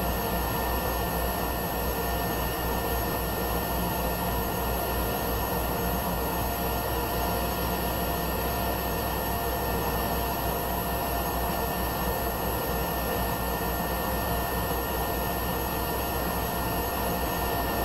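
Cessna 208B Grand Caravan's Pratt & Whitney PT6A turboprop running steadily at ground idle after start, heard inside the cockpit: an even rush with constant high whining tones over it.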